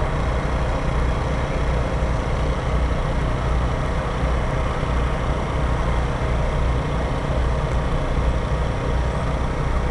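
Wind buffeting the microphone: a steady, irregular low rumble.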